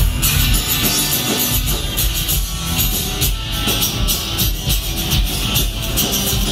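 Live rock band playing loud on a club stage: drum kit, acoustic and electric guitars and bass together at a steady beat.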